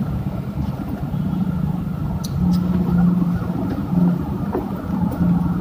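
A steady low motor hum, like an engine running nearby, under a few brief clicks as a backpack's zip and fabric are handled.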